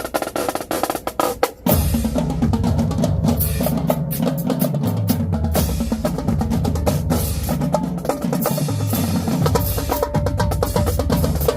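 Marching drumline playing. It opens with sharp, rapid snare strokes and clicks, and about two seconds in the tuned bass drums and the full line come in, the bass drums moving between pitches under steady snare patterns.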